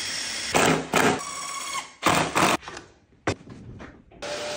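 Cordless drill-driver running in several short loud bursts, driving screws into a white board, with a single sharp click a little after three seconds.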